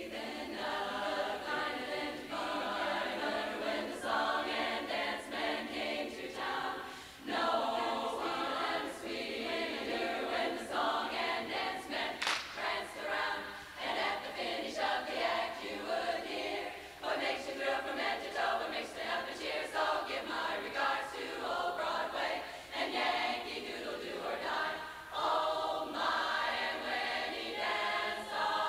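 Large women's barbershop chorus singing a cappella in close harmony, in sustained phrases with brief breaks between them.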